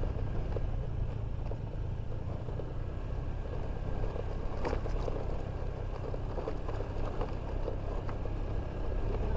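Honda Vario 125 scooter riding over a rough stony track: a steady low rumble of engine and wind on the microphone, with scattered small knocks and rattles as it rides over the stones.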